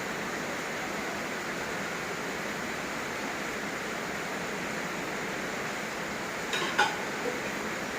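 Steady hiss of heavy rain falling. About three-quarters of the way through, a short clatter of two or three knocks.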